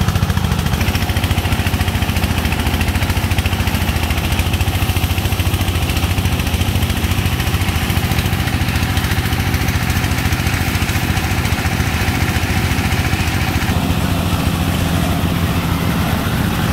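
An engine running steadily with a fast, even firing beat, over the rush of water jetting from a hose onto sand. About three-quarters of the way through the engine note changes as a loaded công nông, a Vietnamese farm truck with an open diesel engine, drives up.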